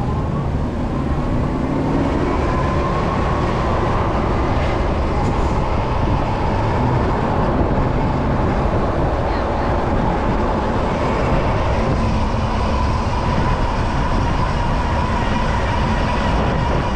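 Riding a Super73 ZX electric bike in city traffic: a steady whine that rises a little in pitch at the start and then holds, over a loud low rumble of wind and road noise.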